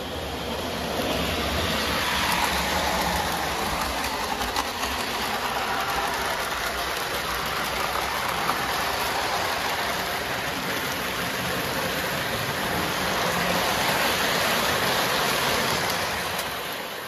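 Lionel O-gauge model train rolling along three-rail track, heard close up from on board: a steady rushing rumble of wheels and motor. It swells in over the first couple of seconds and fades out at the end.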